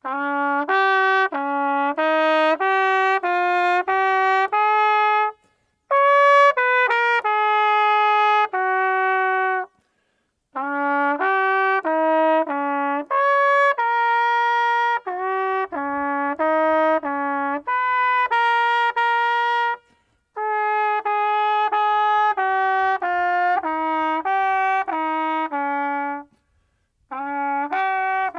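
A solo trumpet-like brass melody played as background music, in phrases of a few seconds with short breaks between them.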